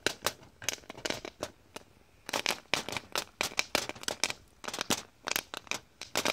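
Popcorn kernels popping while being cooked: rapid, irregular sharp pops, sparse at first and coming thick and fast from about two seconds in.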